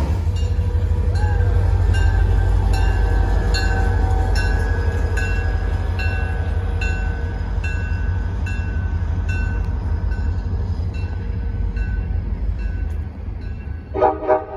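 Train rumbling past with a bell dinging steadily about every 0.8 s, fading over the first ten seconds or so, and two short loud train-horn blasts near the end.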